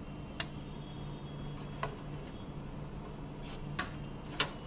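Four light clicks and taps from handling the capillary tube and evaporator coil while the tube is bent by hand, the last, near the end, the loudest, over a steady low hum.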